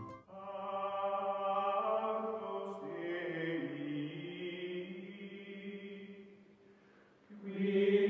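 Outro music of long, held choral chords. The chord fades away about six seconds in, and a new, louder chord comes in about seven seconds in.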